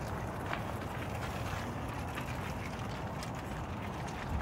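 Steady wind rumble on the microphone, with scattered light clicks and crunches of footsteps on gravel.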